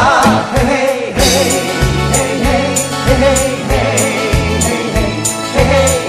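Background music: a Korean-language song, a voice singing over a bass line and a steady beat.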